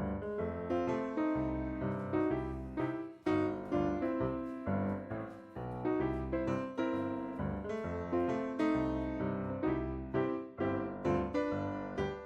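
Background music played on piano or electric piano, notes struck in a steady rhythm.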